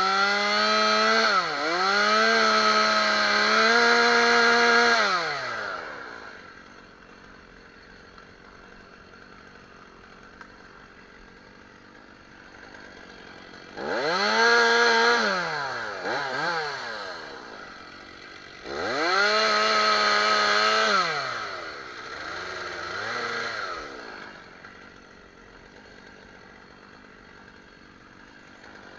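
Two-stroke Stihl chainsaw revved to full speed in three bursts of a few seconds each, its pitch dipping briefly within the bursts. Between the bursts it drops back to a low idle.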